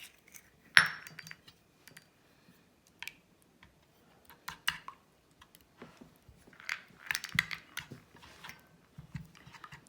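A metal utensil beating a raw egg with oil, garlic and ginger in a small frying pan, clinking and tapping against the pan in irregular bursts, with one louder knock about a second in.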